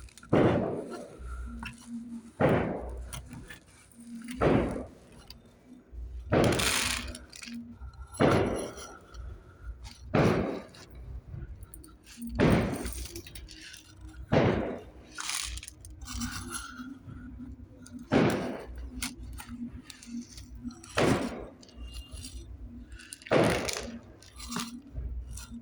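A series of sharp knocks and clinks, one every one to two seconds, each dying away quickly, over a faint low hum.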